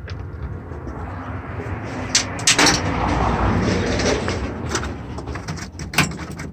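Work on a van's front end: a few sharp knocks and clicks, and a longer scraping noise that swells in the middle and fades.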